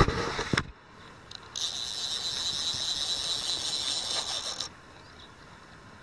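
A knock right at the start, then a fishing reel whirring steadily for about three seconds before stopping.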